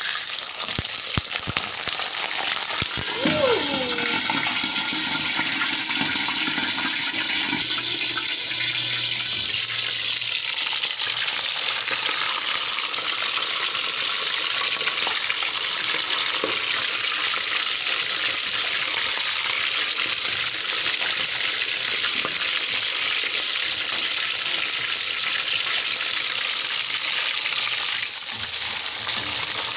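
Boneless milkfish (bangus) fillets sizzling loudly and steadily in hot cooking oil in a metal wok; the sizzle starts abruptly as the fish goes in. A few knocks sound near the start.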